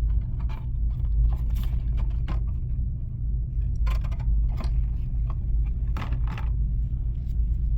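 Scattered light clicks, knocks and scrapes of small flush valve parts being handled, over a steady low rumble.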